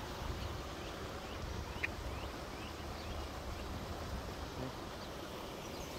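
Wind rumbling unevenly on the microphone over a steady outdoor hiss, with a few faint bird chirps about two to three seconds in.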